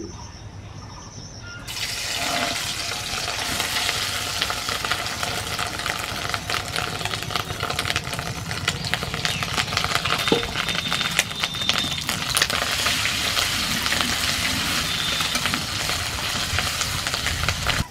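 Catla fish roe, rubbed with salt and turmeric, hitting hot mustard oil in a kadai and sizzling steadily with dense crackling and spitting. The sizzle starts suddenly about two seconds in.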